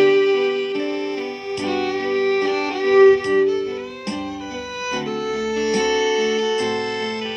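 Violin playing a melody of held notes with short slides, over a backing of plucked-string accompaniment, bass and a steady beat.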